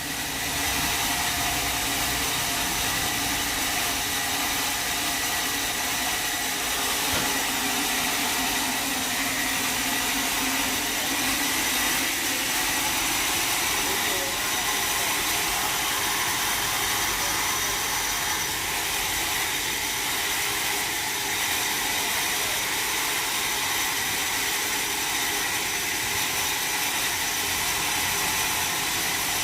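Sawmill machinery running steadily: an engine-like hum under a constant hiss, with a thin high whine held throughout.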